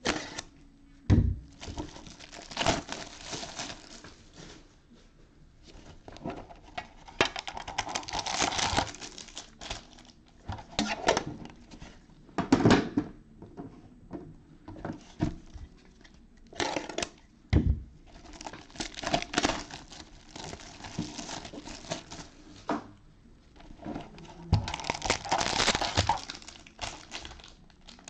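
Plastic shrink-wrap crinkling and tearing as it is stripped off metal trading-card tins by gloved hands, in repeated stretches, with a few dull knocks as the tins are handled and set down.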